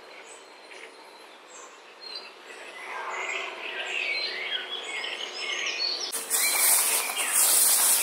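Wild birds chirping and singing, several overlapping calls that grow louder partway through. About six seconds in, a sudden loud rushing hiss takes over, tall grass brushing against the moving microphone.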